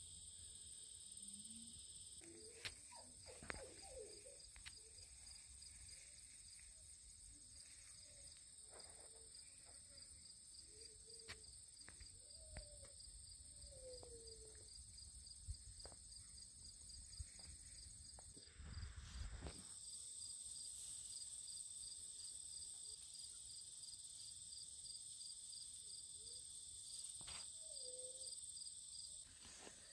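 Faint outdoor insect chorus: a steady high-pitched drone with a regular pulsing chirp, like crickets in grass. A few faint short calls sound in the background, and a brief low rumble comes about two-thirds through.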